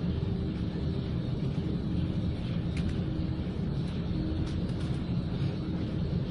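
Grain intake machinery running: a steady low rumble with a hum, and a few faint clicks in the middle of it.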